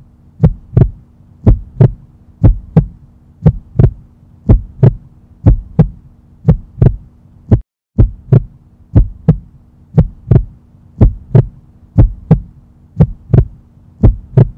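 Heartbeat sound effect: paired thumps, about one beat a second, over a steady low hum. It breaks off briefly about halfway through, then resumes.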